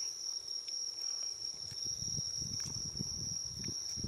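Crickets trilling in one steady, unbroken high-pitched tone. From about halfway in come soft, irregular low smacking noises close by as a cat licks paste treat from a squeezed tube.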